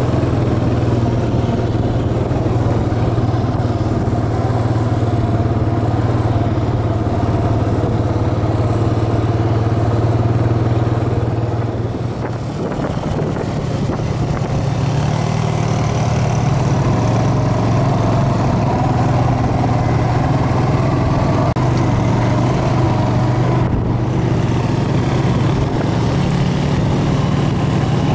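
ATV engines running at a steady cruise, with a brief easing off about twelve seconds in before the steady note resumes.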